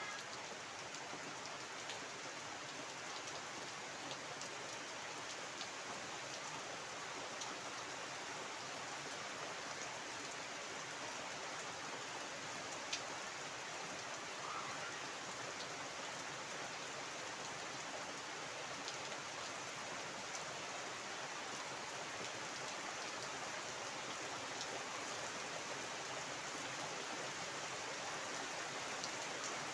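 Heavy rain falling steadily on a flooded yard and foliage: an even hiss of rain on standing water, with scattered individual drop taps and one sharper tap near the middle.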